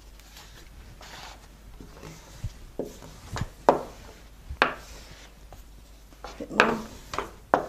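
Small rolling pin rolling modelling paste out thin on a board: a soft rubbing with several light knocks and taps as the pin is set down and pressed.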